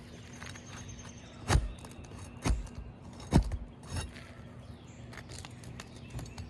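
Steel pry bar knocking against roofing nails and asphalt shingles as the nails are worked loose: three sharp knocks about a second apart, then a fainter one, among small clicks and scrapes.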